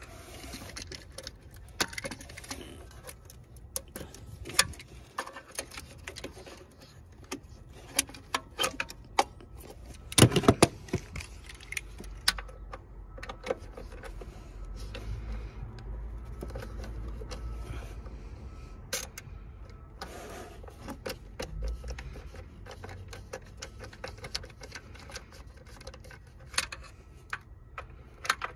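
Irregular clicks, taps and small rattles of parts being handled around a Jeep Wrangler's throttle body and rubber intake hose, with a loud cluster of knocks about ten seconds in.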